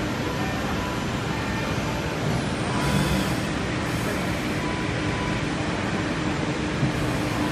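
Steady running noise of a 5-axis CNC wood router in a busy hall. About three seconds in there is a short louder swell as the spindle head swings away from the workpiece, and a single sharp click near the end.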